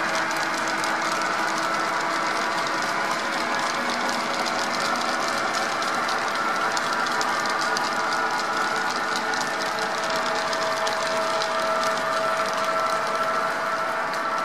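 HO-scale model freight train rolling past: a steady rumble and fine rapid clicking of metal wheels on the rails, with a faint steady hum running under it.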